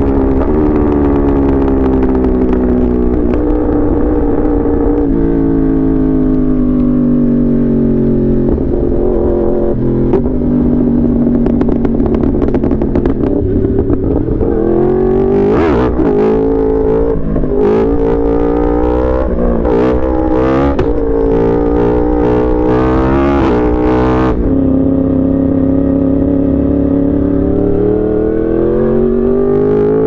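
Yamaha R1 sport bike's inline-four engine under way: the revs fall away, hold steady, then rise and drop quickly several times with sharp cracks from the exhaust in the middle stretch, settle steady again and climb near the end.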